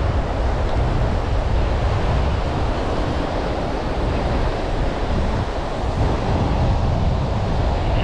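Surf washing on a beach, mixed with wind rumbling on the microphone; an even, unbroken rush.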